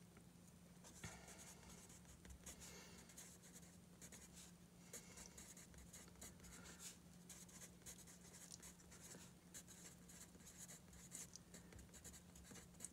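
Faint scratching of a colored pencil on sketchbook paper as words are handwritten, in many short strokes.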